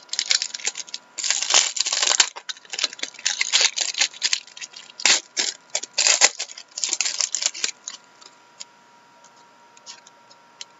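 Foil wrapper of an Upper Deck hockey card pack crinkling and tearing as it is opened by hand, in quick bursts of crackle. After about eight seconds it gives way to a few faint clicks and slides as the cards are handled.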